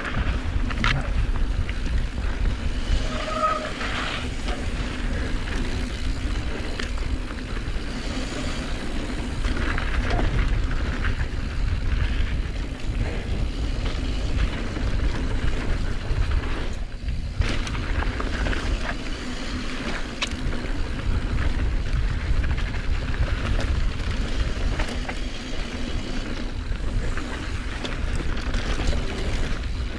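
Wind buffeting a helmet- or body-mounted action camera's microphone, with mountain-bike tyres rolling over a dirt trail during a fast descent. Occasional knocks and rattles from the bike over bumps.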